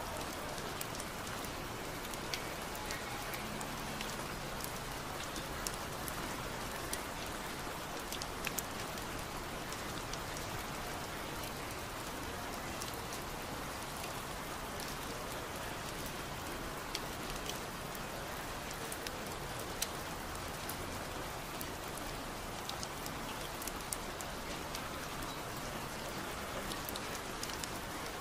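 Steady rain, with many small, sharp drop ticks scattered through it.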